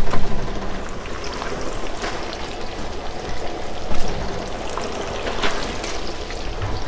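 Hot oil bubbling and sizzling in a commercial pressure fryer as breaded chicken pieces cook, with a few light knocks about 2, 4 and 5.5 seconds in.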